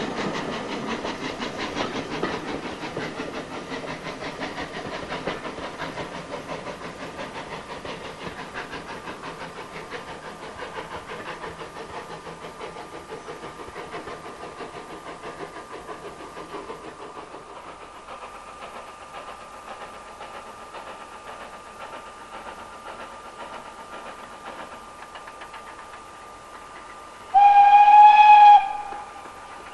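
A steam train draws away, its running noise fading over the first dozen or so seconds. Near the end a steam locomotive's whistle gives one blast of about a second, the loudest sound here.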